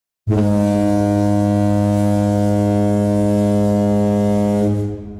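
A large ship's horn sounding one long, steady low blast, starting suddenly and holding for about four and a half seconds before dying away with a fading echo.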